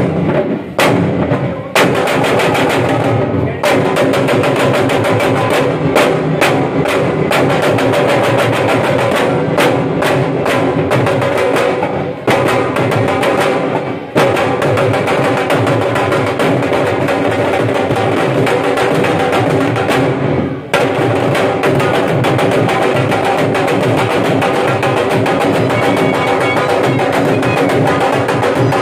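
Several Punjabi dhols beaten together with sticks in a fast, dense rhythm, with a few brief breaks in the first half and one about twenty seconds in.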